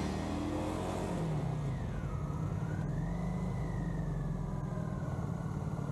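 Motorcycle engine running on the road, its pitch rising and falling with the throttle, over wind and road noise. A thin whine dips and rises in pitch above it.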